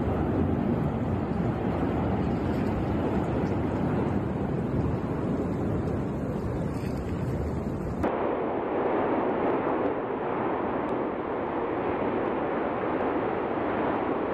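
Continuous loud rumbling roar of the 2021 La Palma (Cumbre Vieja) volcanic eruption, as lava fountains out of the vent. The roar changes abruptly about eight seconds in and sounds duller from there on.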